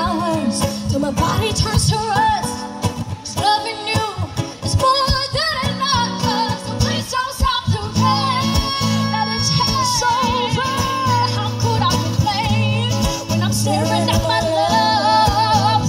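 Two women singing a pop song together into microphones, accompanying themselves on two strummed acoustic guitars.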